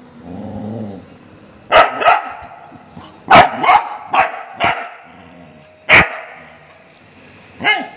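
Golden retriever barking: about seven short, sharp barks, several in quick pairs, with pauses between them.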